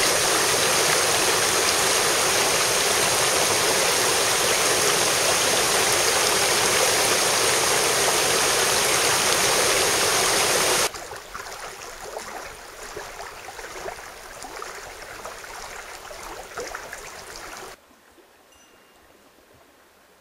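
Mountain stream rushing loudly and steadily, then cutting abruptly about 11 seconds in to softer flowing, gurgling water, which cuts again near the end to a faint hush.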